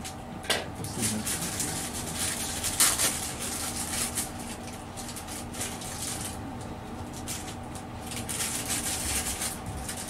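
Small objects and packaging being handled on a shop counter: repeated rustling and scraping with a few sharp clicks, over a steady electrical hum.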